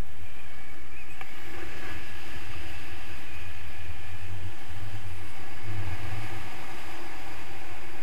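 Airflow buffeting the microphone of a pole-mounted camera during a tandem paraglider flight: a steady, uneven low rumble of wind.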